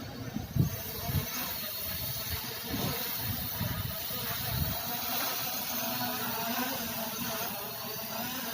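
Holystone HS700 quadcopter's motors and propellers giving a steady hum, with strong wind buffeting the microphone in low gusts during the first five seconds or so, then easing.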